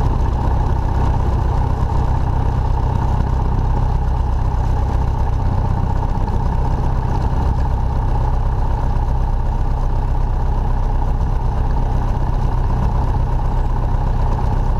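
Single-engine Cessna's piston engine and propeller running steadily at low power while the plane taxis, heard from inside the cabin as an even, unchanging drone.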